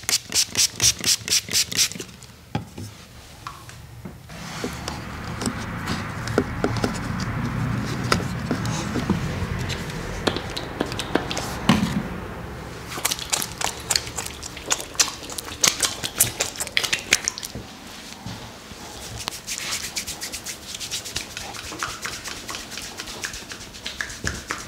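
A pump spray bottle pumped quickly into a cupped palm, about four strokes a second, stopping about two seconds in. Then a steady rubbing of hands, and later hands rubbing and working over the bare skin of an arm in a massage, with scattered soft clicks.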